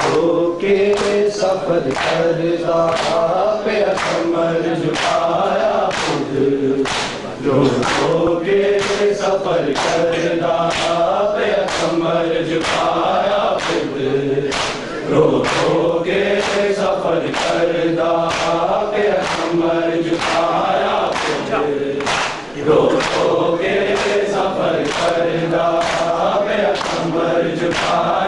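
A group of men chanting a Shia noha together, with a steady beat of open-hand chest slaps (matam) about one and a half a second keeping time with the chant.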